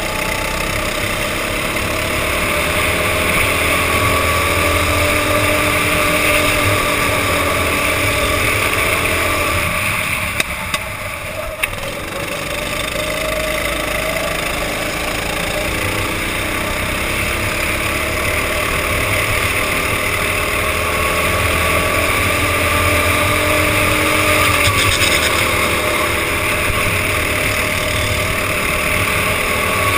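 Go-kart engine running at racing speed, heard from the driver's helmet camera, its pitch rising and falling as the kart accelerates and slows through the corners. About ten seconds in, the engine note drops away for a couple of seconds, with two sharp knocks.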